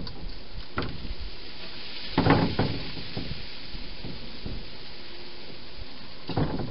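A hedgehog eating at its bowl inside a plastic feeding box: short clusters of crunching clicks and light knocks, the loudest a little over two seconds in and another near the end, over a steady hiss.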